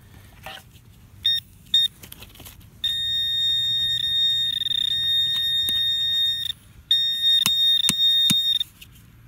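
Metal detecting pinpointer probe sounding on a target in a dug hole: two short high beeps, then a steady high tone for about three and a half seconds, a brief break, and the same tone again for nearly two seconds. A few soft clicks from the probe against the soil are heard under the tone.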